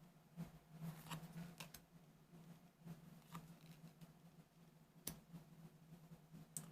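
Near silence with a few faint clicks and rustles of trading cards being handled, the sharpest click about five seconds in.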